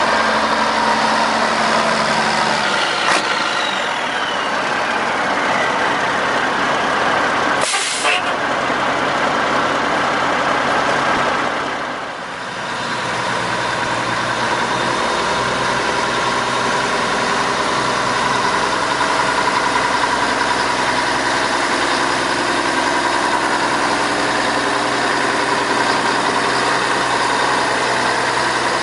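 1957 Mack H-63 cab-over semi tractor's diesel engine running as the truck drives slowly around. About eight seconds in, a short hiss of air comes from the air brakes.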